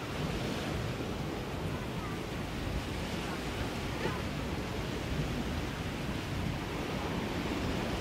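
Steady beach ambience: the wash of sea surf, with wind across the microphone.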